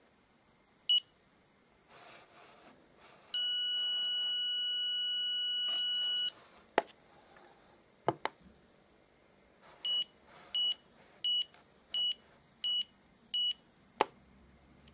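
Handheld stud and cable detector beeping. A short beep comes about a second in, then a steady tone of about three seconds, then six short beeps evenly spaced at about one and a half per second near the end. A few sharp clicks of handling or button presses fall between them.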